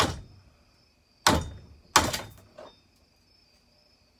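Three sharp taps in the first two seconds and a fainter fourth just after: a screwdriver being tapped into a chainsaw bar's groove to spread its pinched rails.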